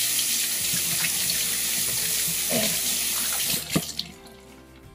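Bathroom sink tap running, water pouring steadily into the basin, then shut off about three and a half seconds in, followed by a single sharp knock.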